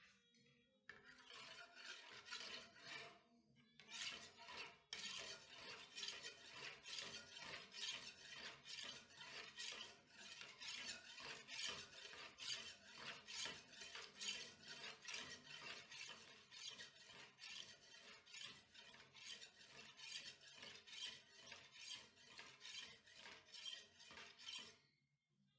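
Steel machete blade, forged from a leaf spring, stroked back and forth across a sharpening stone held in a vise. The blade is being honed in even, rhythmic scraping strokes at about two a second, with a short pause a few seconds in.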